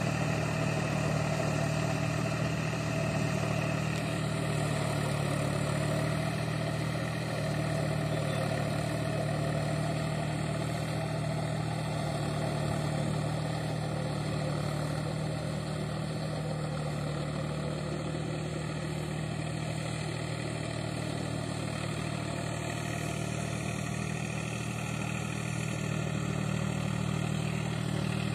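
Powertrac Euro 45 Plus 4WD tractor's three-cylinder diesel engine running steadily as it pulls a tillage implement through a flooded field, a low even drone that grows a little louder near the end as the tractor comes closer.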